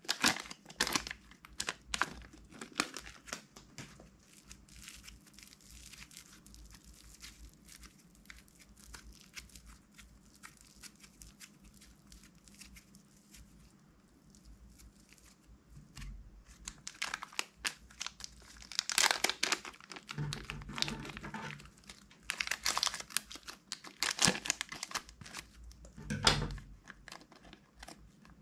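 Thin plastic bag crinkling as fingers squeeze and peel soft red clay out of it, with sticky tearing as the clay pulls apart. Softer through the middle, then louder bursts of crinkling in the last third.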